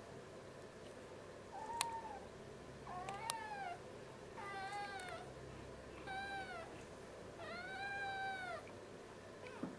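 Grey tabby kitten meowing five times in short, high calls that rise and fall in pitch, the last one the longest. A sharp click comes near the start of the first meow.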